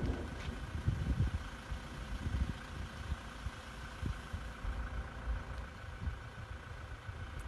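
Strong wind buffeting the microphone in uneven gusts, a low rumble that swells and fades, with a faint steady hum behind it.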